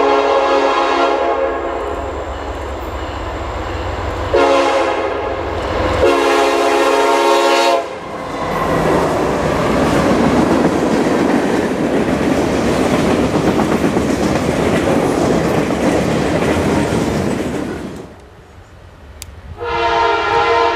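Diesel freight locomotive air horn sounding three long blasts over the low rumble of its engine. The train then rushes past for about ten seconds with wheel and car noise. The horn sounds again near the end.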